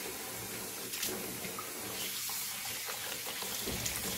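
Kitchen tap running in a steady stream into a plastic basin of water in a stainless steel sink, as napa cabbage leaves are rinsed by hand under it, with small splashes.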